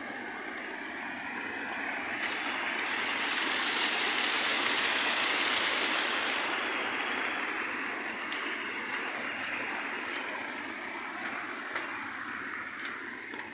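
Rainwater runoff pouring over a stacked-stone wall in several small cascades, a steady rush of water that grows louder for a few seconds in the middle and fades toward the end.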